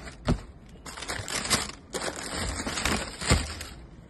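Tissue paper rustling and crinkling as sneakers are unwrapped and pulled from their shoebox, with a thump about a third of a second in and a louder one near the end.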